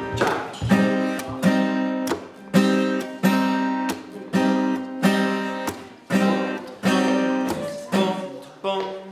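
Acoustic guitars strumming chords together in a slow, even rhythm, each strum ringing on and fading before the next.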